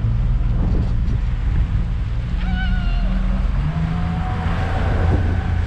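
Speedboat engine running under way, with a steady deep rumble mixed with rushing wind and water noise. A brief wavering higher tone cuts in about two and a half seconds in.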